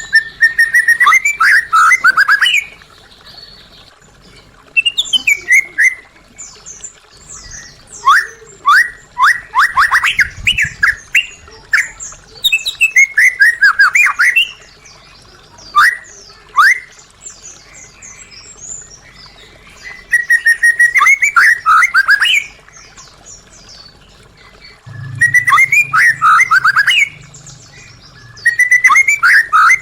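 White-rumped shama (murai batu) singing: loud phrases of rapid whistled notes, many of them dropping quickly in pitch, come in bursts of one to three seconds with short pauses between.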